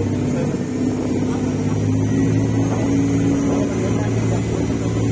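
A motorboat engine running at a steady drone as the boat cruises, with the hiss and churn of its wake.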